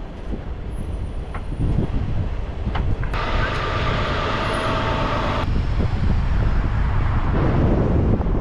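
Vehicle driving on a snowy road, heard from inside the cab: steady low engine and road rumble. About three seconds in, a louder hiss with a faint whine starts suddenly and cuts off about two seconds later.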